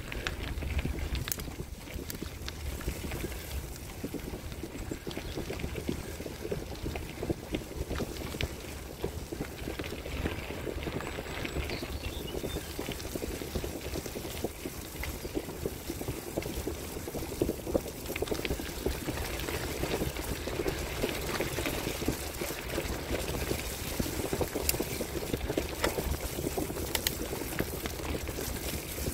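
Bicycle tyres rolling over a packed dirt and gravel road: a steady crunching noise scattered with small clicks and rattles.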